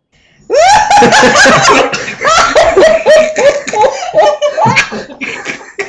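An elderly woman laughing hard: a long run of high-pitched 'ha' bursts, about three or four a second, starting about half a second in and tailing off near the end.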